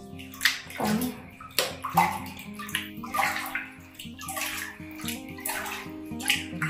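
Water splashing in a plastic basin as a hand scoops and pours it over a baby monkey being bathed, a splash about every second, with soft music underneath.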